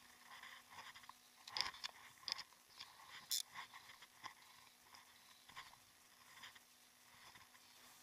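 Faint, irregular clicks and rustles of a fly rod, reel and line being handled, with one sharper click about three seconds in.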